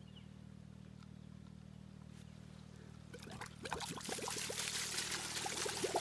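Water gushing and gurgling out of the open end of a septic distribution lateral during a line flush. It starts about three seconds in, over a steady low hum, as the pressurized pipe purges.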